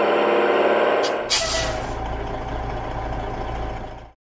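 Heavy truck engine running, then a loud hiss of air brakes about a second in as the truck stops. The engine then drops to a low idling rumble that cuts off suddenly near the end.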